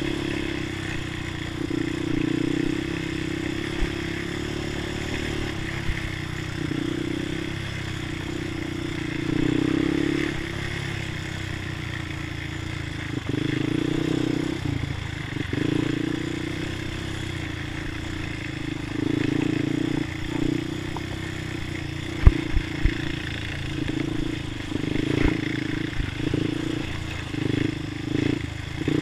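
A Honda ATV's single-cylinder four-stroke engine running under way, its note rising and falling with the throttle every few seconds. Knocks and rattles from the machine over bumps, with a cluster of sharp knocks a little past the middle.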